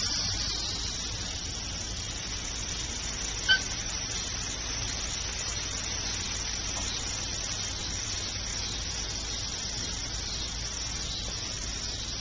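One short, high-pitched yelp from a curly-coated retriever puppy at rough play, about three and a half seconds in, over a steady background hiss.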